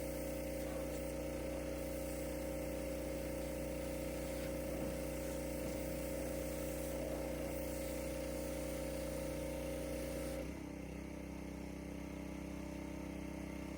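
An engine running steadily with an even, pitched hum. About ten seconds in its note changes suddenly: the highest hum stops and the sound settles slightly quieter.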